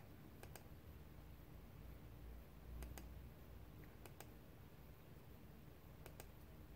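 Faint computer mouse clicks, about four times, each a quick press-and-release pair, over near-silent room tone.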